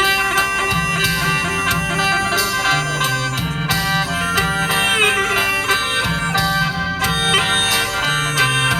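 Isan khaen, the bamboo free-reed mouth organ, playing a traditional tune over its own sustained drone notes, with a plucked string instrument keeping a steady rhythm alongside.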